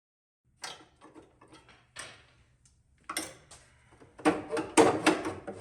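Scattered sharp clicks and knocks, turning into busy, louder clattering about four seconds in.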